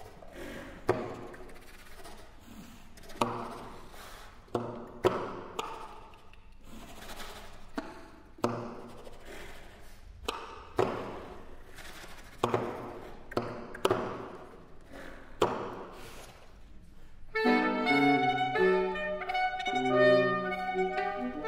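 Saxophone quartet playing contemporary music: sharp accented attacks about once a second, each dying away. About three-quarters of the way through, louder held and moving chords take over.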